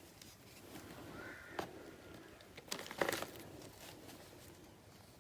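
Quiet handling of cardboard and plastic game pieces, with a light click about a second and a half in and another short knock about three seconds in.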